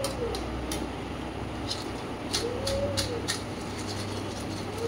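Chekkalu (rice-flour crackers) deep-frying in hot oil, sizzling with scattered sharp crackles and a low steady hum. Over it a pigeon coos in smooth rising-and-falling calls, about once every two seconds.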